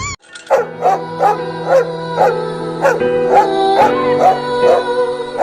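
Music with a steady beat and held chords, with a dog's short yelps sounding in time with it, about two a second.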